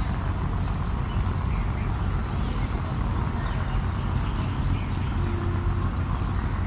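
Steady outdoor city ambience: a low rumble of distant road traffic with faint bird chirps.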